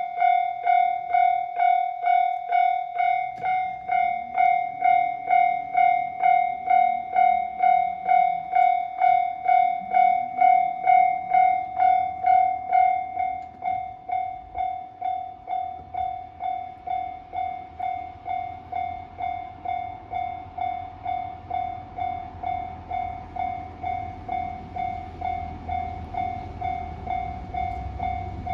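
Railway level-crossing alarm ringing steadily at about two strikes a second. It drops in level a little under halfway through. A low train rumble grows underneath toward the end.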